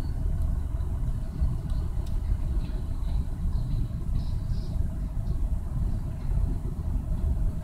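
Freight train of covered hopper cars rolling past: a steady low rumble of steel wheels on the rails, with faint brief squeals now and then.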